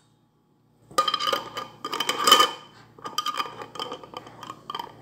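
Kitchen clatter of metal utensils and glass clinking and knocking, starting about a second in, loudest a little past the middle.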